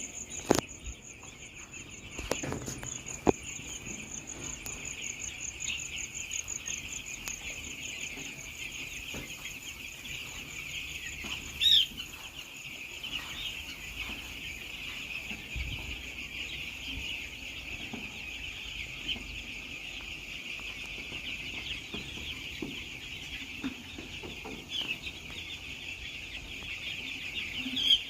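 A large flock of week-old chicks peeping together, a dense continuous chorus of high chirps. A few sharp knocks sound in the first few seconds, and a steady high insect-like tone fades out by about seven seconds in.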